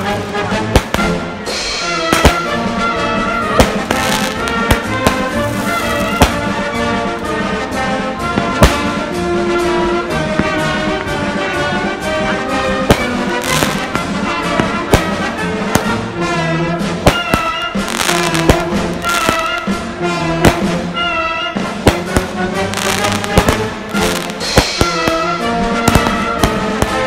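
Patriotic orchestral music with prominent brass, with many sharp bangs and crackles from fireworks going off.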